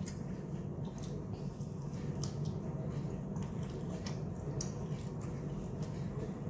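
A person chewing sauce-glazed fried chicken with wet, squishy mouth sounds and scattered small clicks, over a steady low background hum.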